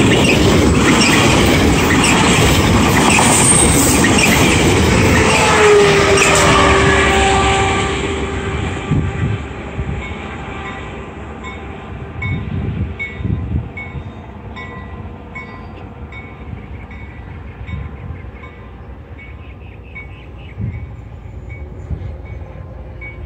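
COASTER bi-level commuter train passing close by, its wheels and cars loud for the first eight seconds or so. A held tone sounds from about five and a half to eight seconds in. The train's noise then fades steadily into the distance.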